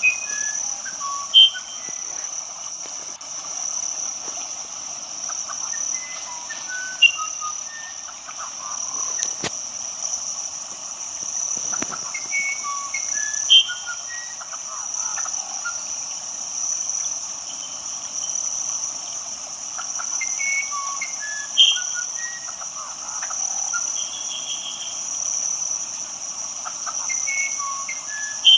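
Night insect chorus, a steady high-pitched pulsing trill, with scattered short frog or animal chirps. A louder short call stands out five times, about every seven seconds.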